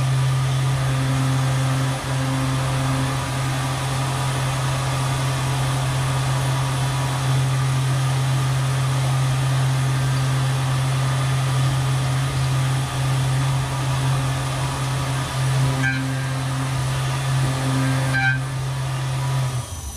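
Tormach 770 CNC mill spindle running at 8000 RPM while a 3/8-inch two-flute chamfer mill cuts a metal part under flood coolant. It makes a steady low hum with cutting and coolant-spray noise, changing briefly twice near the end.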